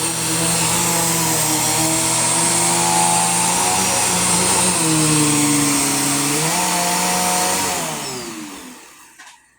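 Bissell PowerForce Helix Turbo Pet vacuum cleaner running, its motor whine shifting in pitch a couple of times. Near the end the motor is switched off and spins down with a falling whine until it stops.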